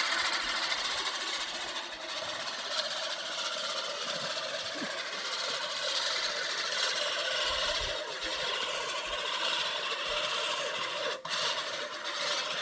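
Lawn mower running steadily while cutting grass, with a brief drop in its sound about eleven seconds in.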